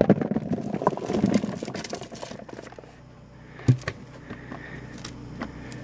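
Root vegetables (sweet potatoes, potatoes, carrots) tumbling out of a plastic tub into an empty plastic bucket: a quick run of knocks for the first two seconds, then a few scattered bumps as a hand settles them, with one louder thump near the middle.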